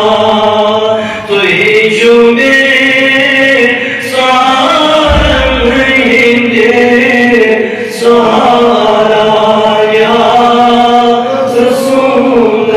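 A solo male voice singing a Kashmiri naat into a microphone, chant-like, with long held notes that bend in pitch. The phrases last a few seconds each, with short breaths between them. There is a low thump about five seconds in.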